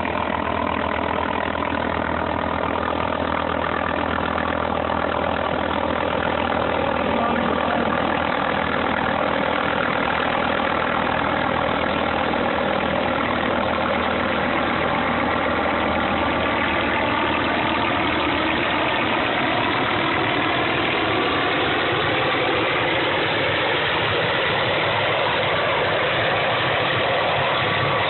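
NOTAR police helicopter running close by as it comes in to land: a steady turbine-and-rotor sound of many tones, getting a little louder over the first several seconds, with its tones rising slowly in pitch through the second half.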